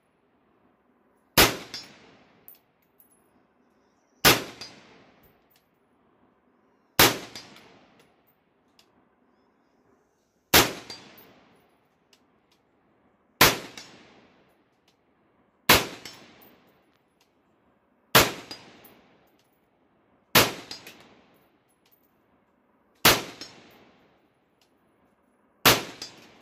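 AR-15 rifle in 5.56/.223 firing ten single shots at a slow, even pace, one every two to three seconds. Each shot is sharp and loud and trails off in an echo lasting about a second.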